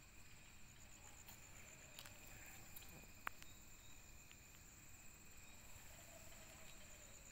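Near silence: faint background with a steady high trill and a single sharp click about three seconds in.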